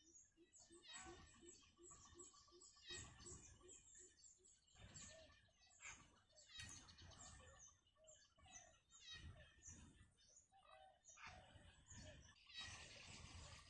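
Faint, rapid high-pitched peeping and chirping in repeated bursts from newly hatched bittern chicks in the nest. A quick run of low pulses sounds in the first three seconds.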